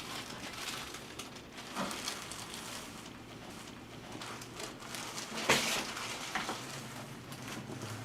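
One sharp crack about five and a half seconds in, the joint release of a chiropractic spinal adjustment thrust, with a few fainter clicks and soft rustling of the patient on the table around it.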